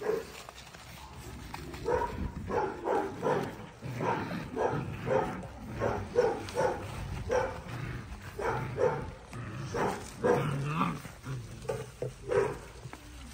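Cane Corso puppies barking in play as they wrestle and tug over a toy: a long run of short barks, roughly two a second, starting about two seconds in.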